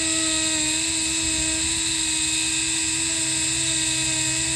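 Dremel rotary tool running steadily at high speed with a constant whine, grinding burrs off the cut metal end of a bicycle brake cable housing.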